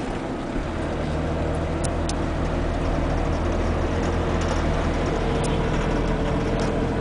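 Nissan VQ35DE 3.5-litre V6 idling steadily, with a few faint sharp ticks over it. The owner says this engine knocks for no clear reason and pulls poorly under load.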